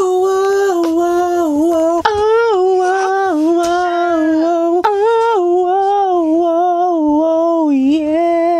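A person humming one long, unbroken note that wavers and steps slightly in pitch, used as a trick to calm a crying newborn.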